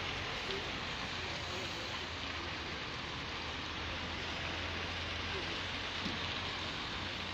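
Heavy truck hauling a wind turbine blade on a long multi-axle trailer, passing slowly: a steady low engine hum under an even rushing noise of tyres and road.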